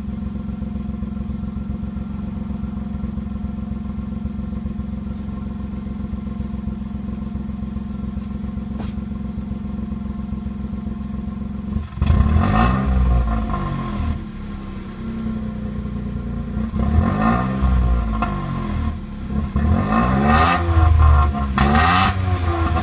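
Vauxhall Corsa B 1.0 three-cylinder petrol engine idling steadily for about twelve seconds, then revved repeatedly, the revs rising and falling with several sharper blips near the end. The owner takes its stumble when the throttle is first pressed for a misfire.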